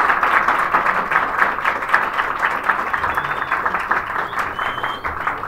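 Audience applauding at the end of a talk, a dense spell of many hands clapping that dies away near the end.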